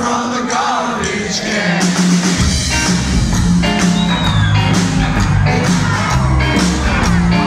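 Live rockabilly trio playing: a Gretsch hollow-body electric guitar, an upright double bass and drums. The bass and drums come in full about two seconds in.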